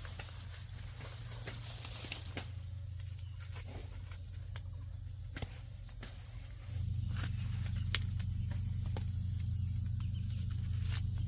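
Outdoor ambience: a steady high insect chirring, a low steady hum that gets louder about two-thirds of the way through, and scattered sharp clicks.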